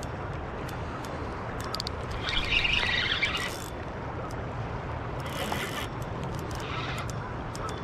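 Okuma Ceymar C-30 spinning reel's drag buzzing in three short bursts as a hooked steelhead pulls line off against it, the loudest and longest, over a second, about two seconds in. Under it a steady low rush of moving water.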